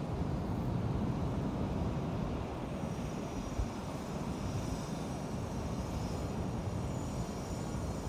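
Steady low rumble of wind and storm surf on a beach, the wind buffeting the microphone. A single small knock comes about three and a half seconds in.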